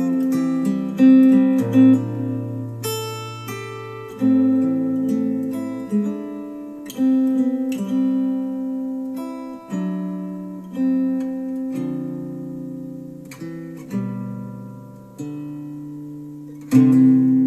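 Slow acoustic guitar music played back through Cambridge Audio SX50 bookshelf speakers. A chord or bass note is struck about every second or so and each is left to ring and fade.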